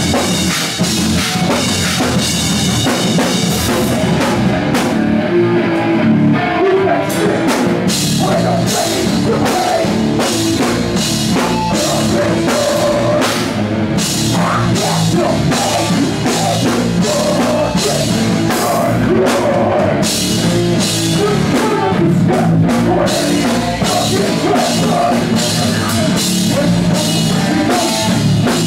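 Live rock band playing loud, with drum kit and guitar.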